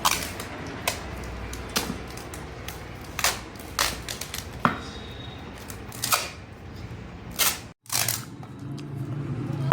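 Plastic tape being worked onto a broken cricket bat: irregular sharp clicks and short crackling snaps, about one a second, as the tape is pulled, stuck down and pressed onto the wood.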